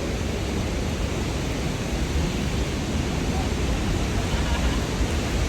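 Steady rushing roar of a large waterfall running full after heavy rain, with a strong low rumble.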